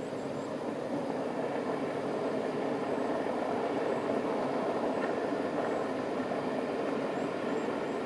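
LMS Stanier Black Five steam locomotive 45407 hauling its train in the distance: a steady rumble of locomotive and coaches without distinct beats or a whistle.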